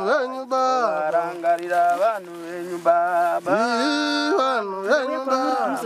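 A person's voice chanting in long, held notes that bend up and down between short breaks.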